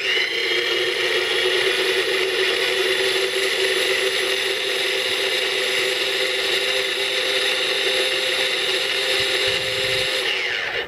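Electric mini food chopper running steadily for about ten seconds, chopping parsley, garlic, oil and vinegar into chimichurri. Its motor whines up to speed at the start and winds down near the end.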